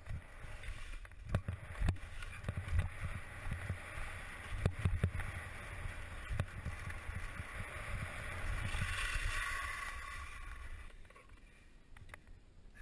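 Skis sliding and scraping over thin, patchy spring snow, with scattered knocks and a low wind rumble on the microphone. The sliding hiss swells about nine seconds in, then fades away about two seconds later.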